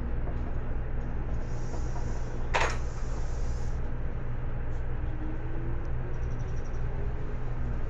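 Running sound inside an 811 series electric train car with outer-fan traction motors: a steady low rumble and hum of wheels on rail, with one sharp knock about two and a half seconds in. From about halfway a thin whine rises steadily in pitch as the train picks up speed.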